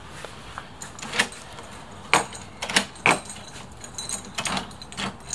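A bunch of keys jangling against a steel entry door as a key is worked in its lower lock cylinder. There are a series of sharp metallic clicks from about a second in, loudest around the middle.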